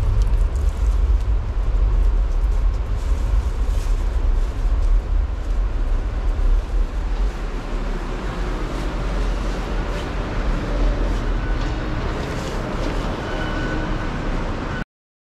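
Indoor metro-station ambience: a low, steady rumble under a noisy background hum, which cuts out suddenly for a moment near the end.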